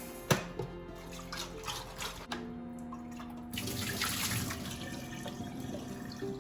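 Tap water running at a sink while the glass electric kettle is rinsed out, with a sharp knock just after the start and a few small clinks; the water runs fuller and steadier for the last three seconds.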